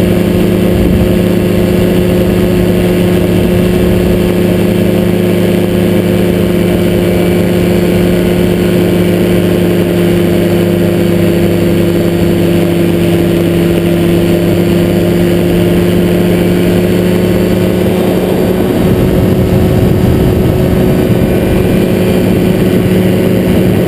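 Motorized hang glider trike's engine and propeller running at a steady cruise in flight, a loud, even drone mixed with rushing air. About three-quarters of the way through, the low drone turns rougher and less even as the wing banks.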